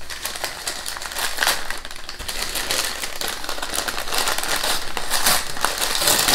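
Packaging being rummaged through and handled: packing paper and wrappers crinkling and rustling in irregular crackly flurries, louder about a second and a half in and again near the end.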